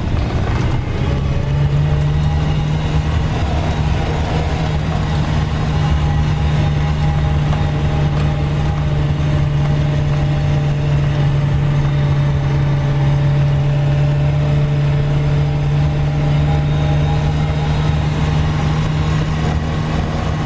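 Car driving at a steady low speed, heard from inside the cabin: a constant low engine drone with tyre and road noise.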